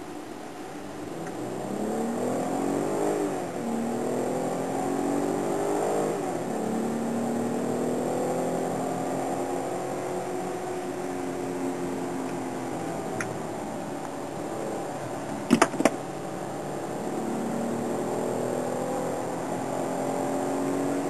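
Mercedes-Benz car engine heard from inside the cabin, accelerating through the gears: its pitch climbs and falls back at upshifts twice in the first six seconds, then runs steadier and climbs again near the end. Two sharp knocks come about three-quarters of the way through.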